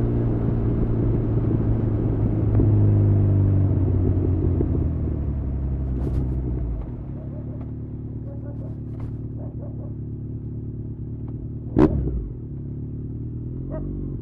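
Honda CB1100's inline-four engine running through an Arrow titanium full exhaust system while riding: a steady exhaust note that swells a few seconds in, then settles to a lower, quieter drone about seven seconds in. A single sharp knock near the end.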